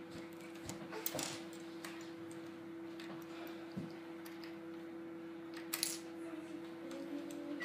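Scattered light clicks and clinks of small hard objects, a few sharper ones about a second in and near six seconds, over a steady hum.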